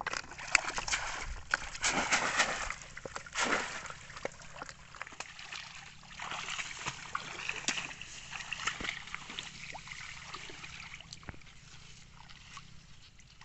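Shallow floodwater sloshing and splashing as a person wades through flooded grass in rubber boots and reaches down into the water for a fish trap. The splashing is loudest over the first few seconds, then goes on softer and more broken.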